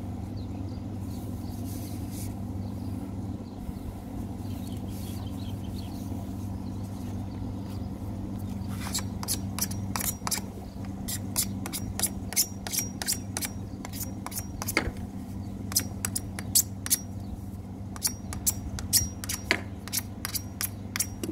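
Hacksaw blade cutting a grey PVC water pipe by hand. Quick, irregular strokes begin about nine seconds in, over a steady low hum.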